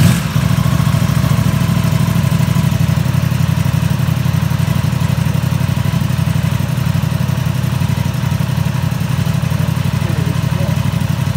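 Aprilia RS660's parallel-twin engine catching with a brief flare at the start, then idling steadily.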